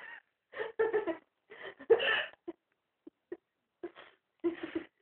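A girl hiccuping and giggling: a string of short bursts of breath and voice, loudest about two seconds in, with a few brief single hiccup blips in the middle.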